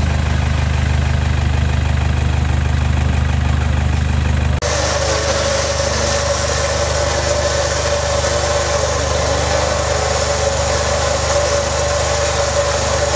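Off-road Toyota Hilux Vigo 4x4 pickup's engine running steadily at low revs while crawling the climb. About four and a half seconds in, the sound cuts abruptly to another steady engine sound carrying a constant high hum.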